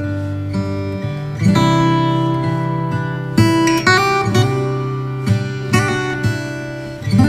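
Background music: acoustic guitar strumming slow chords, a new chord every second or so.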